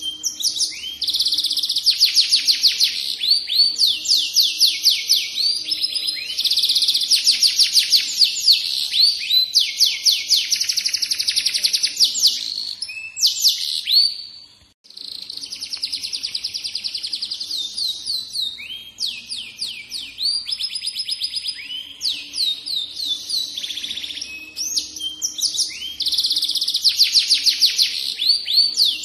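Yellow F1 canary singing a long, continuous song of rapid trills and repeated high whistled notes, with one brief pause about halfway through.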